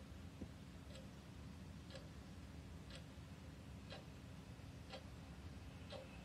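A clock ticking faintly, one tick a second, over a low steady hum.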